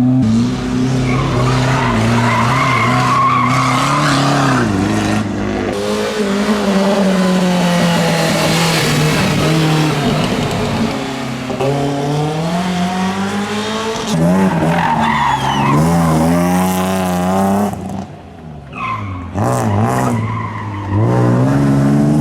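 Classic rally cars driven hard on a stage: engines revving up and dropping back repeatedly through gear changes, with tyres squealing as the cars slide through corners. The sound breaks off briefly about three quarters of the way through before another car's engine rises again.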